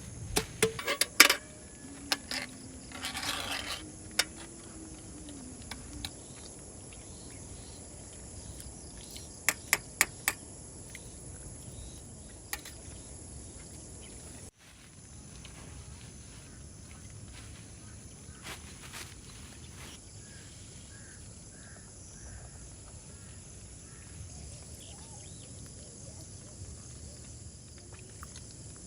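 Outdoor ambience: a steady high insect trill over a light hiss. A few sharp clicks and knocks fall in the first half, four of them close together about ten seconds in.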